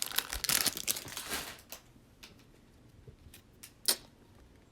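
Foil trading-card pack wrapper being torn open and crinkled for about a second and a half, followed by a few light ticks and clicks, the loudest just before the end.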